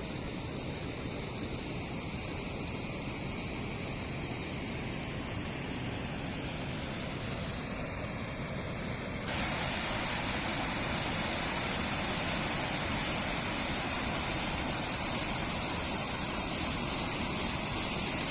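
Waterfall rushing steadily. About nine seconds in it suddenly becomes louder and brighter and stays that way.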